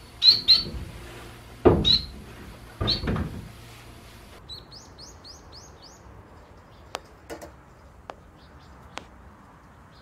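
Eurasian tree sparrow chirping, four loud chirps in the first three seconds. Then a Bengalese finch gives a quick run of five rising notes, followed by a few sharp clicks.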